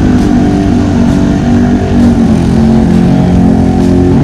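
ATV engine heard from the rider's seat, running steadily under throttle, its pitch shifting a little about two seconds in.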